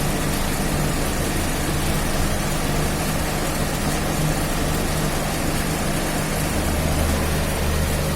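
Daihatsu Charade's three-cylinder engine idling steadily.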